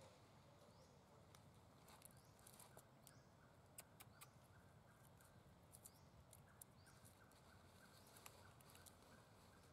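Near silence: faint outdoor background with scattered soft clicks and ticks.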